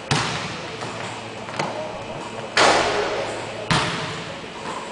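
Basketball thumps and knocks on a hardwood gym court during one-on-one play: four separate knocks, each echoing off the large gym. The loudest comes about two and a half seconds in.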